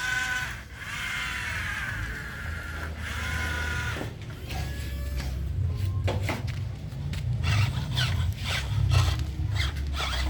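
Small electric motors and gearboxes of RC construction models whining and shifting in pitch, then many clicks and scraping sounds of the models working in sand over a low steady hum.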